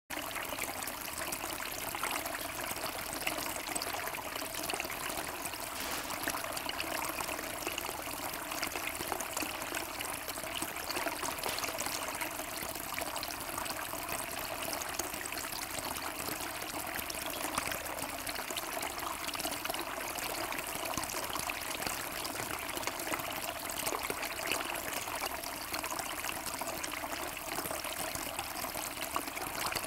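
Small stone bowl fountain running: a low jet of water bubbling up and splashing back into the basin, a steady trickle and splash.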